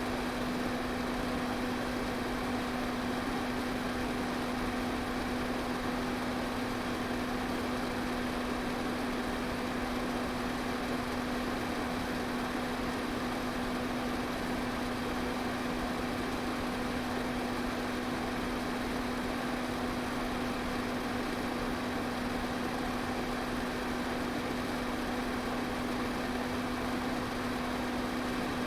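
Electric fan running steadily: an even rush of air over a steady motor hum, with no change throughout.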